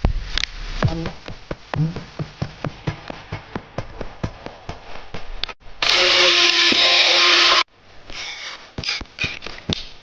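Clicks and light knocks of hand work on small parts while a water pump is being swapped in an electric kettle base. About six seconds in, a loud steady mechanical whirring runs for under two seconds and cuts off suddenly.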